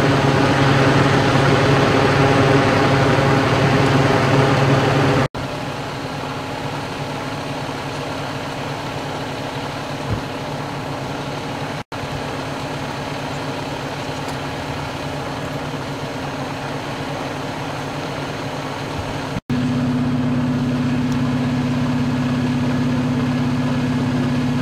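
Fire engine's diesel engine idling steadily, a constant low drone. The sound drops out for an instant three times where the footage is cut, and each stretch differs slightly in level and tone.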